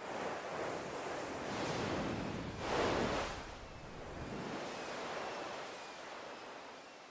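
Large ocean waves breaking on a beach: the surf swells at the start, crashes loudest about three seconds in, then washes out and fades.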